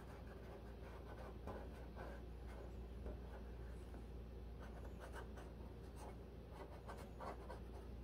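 Felt-tip permanent marker tracing around a gasket on blue painter's tape: faint, short scratching strokes with a steady low hum underneath.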